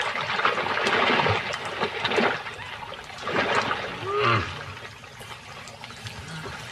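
Crocodiles thrashing in thick mud and water, with repeated splashing and sloshing surges. A short animal call sounds about four seconds in.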